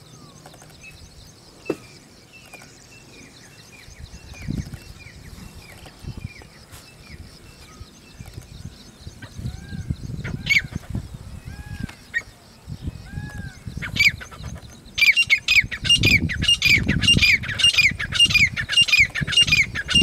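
Grey francolin (desi teetar) calling, a female's call of the kind played to lure birds for hunting. It starts as a string of short falling notes, and from about fifteen seconds in becomes a loud, fast run of repeated calls, about three a second.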